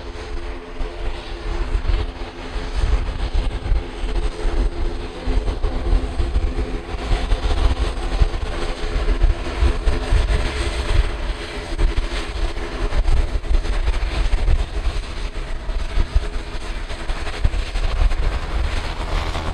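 Silver Airways ATR 42-600's twin turboprop engines and propellers running as the airliner rolls along the runway: a steady hum of several even tones over a fluttering low rumble.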